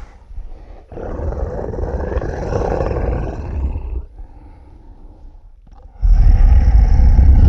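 Godzilla-style monster roar sound effect: a rough, growling roar from about a second in, dying to a low rumble, then a much louder roar bursting in near the end.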